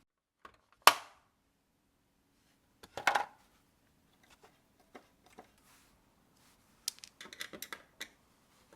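Kitchen items being handled and set down, sharp knocks and clinks: one loud knock about a second in, a short cluster around three seconds, then a quick run of small clicks and knocks near the end.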